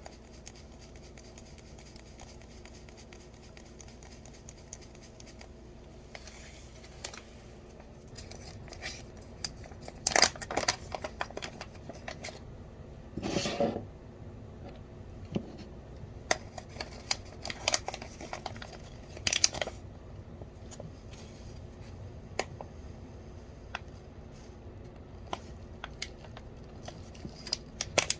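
Spice jars and seasoning packets being handled during a spice refill: scattered clicks and taps, with a few short, louder rustling and scraping bursts.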